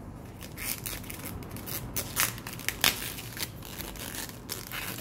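Camera packaging being handled as the camera body is unwrapped: crinkling and rustling with scattered sharp clicks and snaps, one sharper snap a little before three seconds in.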